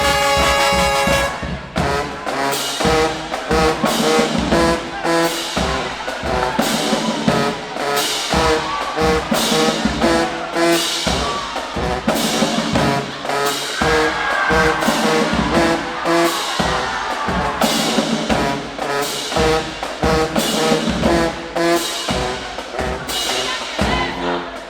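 High school marching band playing: a brass section of trumpets and trombones over a driving drumline beat, opening on a held chord that breaks off about a second and a half in.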